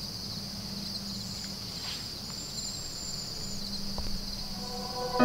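Steady outdoor chorus of crickets chirring at dawn, with a few thin, high bird calls in the first few seconds over a low steady hum.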